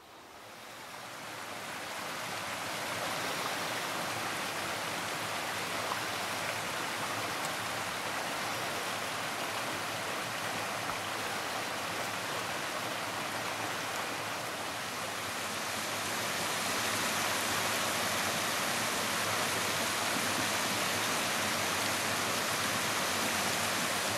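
Rushing water of a stream, a steady hiss that swells in over the first two seconds and grows a little louder about halfway through.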